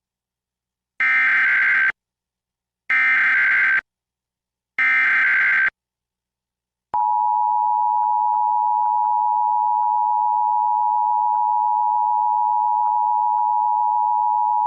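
Emergency Alert System test signal: three short, identical SAME header data bursts about two seconds apart, each a warbling digital tone, marking the start of the alert. After a short silence comes the steady two-tone EAS attention signal, held for about eight seconds.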